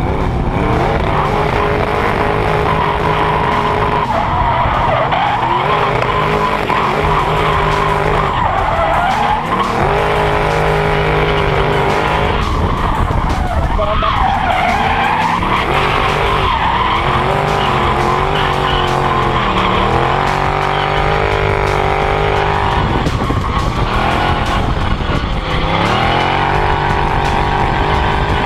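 Drift car engine revving hard, its pitch rising and dropping again and again, with tyres screeching as the car slides sideways.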